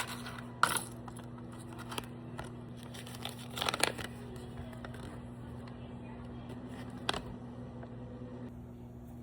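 Minifigure blind-bag packaging being torn open and crinkled by hand, in a few short sharp bursts: about a second in, around four seconds in and near seven seconds in. A faint steady low hum runs underneath.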